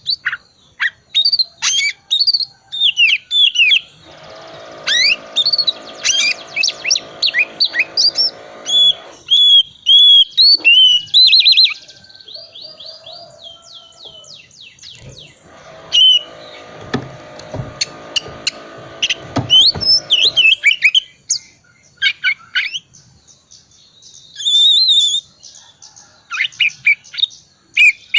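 Oriental magpie-robin singing a rapid run of varied whistles, chirps and twittering notes, the soft chattering 'ngriwik' type of song used to lure another magpie-robin into singing. Twice it is joined for a few seconds by a low, harsh buzzing rasp.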